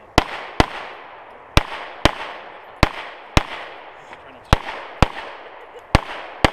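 Semi-automatic pistol firing ten shots as five pairs, the two shots of each pair about half a second apart, each shot followed by a short echo.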